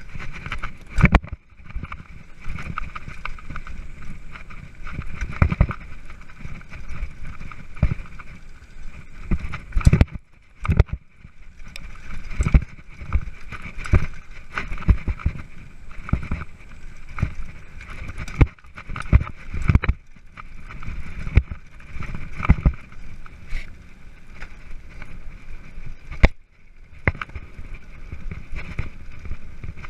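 Mountain bike ridden over a rough dirt trail: a steady rattle broken by many sharp knocks as the bike jolts over bumps.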